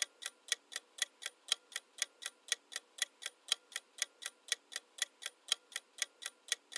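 Clock-ticking sound effect of a countdown timer, with even, fairly faint ticks at about four a second.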